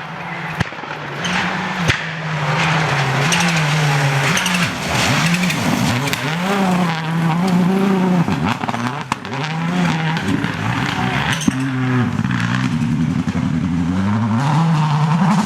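Rally car engine revving hard, its pitch climbing and dropping several times as it accelerates and shifts or lifts off. There are a few sharp cracks.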